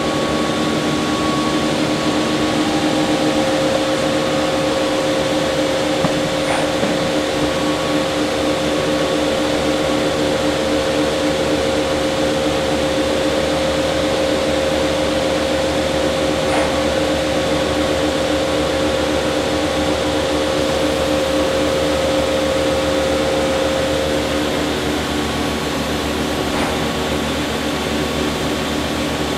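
Okuma Cadet L-1420 CNC turning center running through a cycle, its 3-jaw power chuck spinning: a steady machine hum with several held tones, the strongest of which drops out about 24 seconds in. Faint ticks come about every ten seconds.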